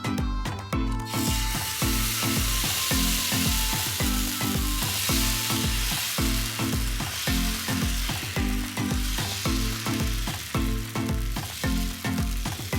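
Food frying in hot oil, a steady sizzle that starts about a second in.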